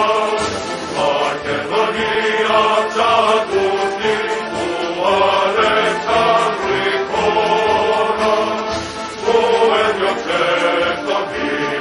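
Music: a choir singing a chant-like melody in phrases of a second or two with short breaks between them.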